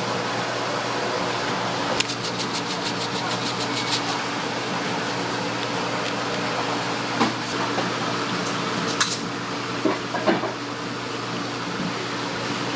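A steady mechanical hum runs throughout. About two seconds in, a quick run of small clicks lasts about two seconds, and a few single clicks and knocks follow later.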